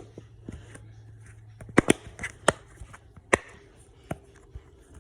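Butterfly dimple fidget toy being popped: a series of sharp clicks at irregular intervals as its bubbles are pressed through.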